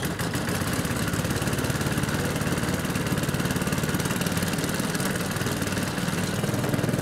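Boat's Briggs & Stratton 900 Intek single-cylinder engine catching on a pull of the starter cord and then running steadily at idle.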